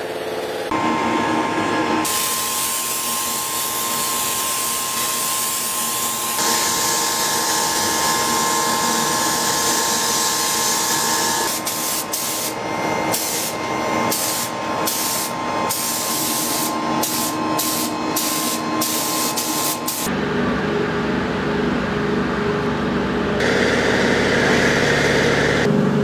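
Compressed-air paint spray gun hissing as it sprays paint onto a car body shell. It runs steadily at first, then comes in short on-off bursts as the trigger is pulled and released. Near the end the hiss stops and a lower mechanical hum is left.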